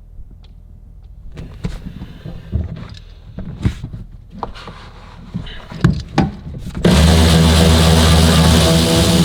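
Scattered clicks and knocks of tools and car parts being handled, then a cordless power tool runs steadily for about three seconds, loud and even in pitch, driving out a fastener.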